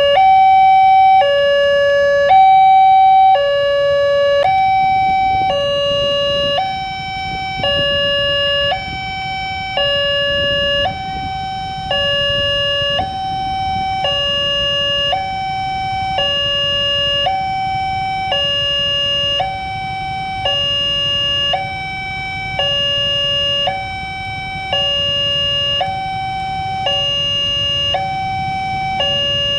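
Railway level-crossing warning siren sounding a two-tone hi-lo alternation, each tone about a second long, the signal that a train is approaching and the barrier is closing. A low rumble runs underneath from about five seconds in.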